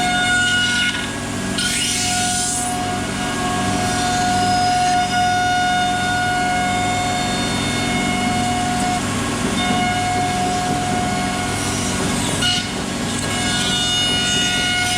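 CNC router running and its bit cutting into wood, a steady whine made of several held tones. The cutting noise swells about two seconds in and again near the end.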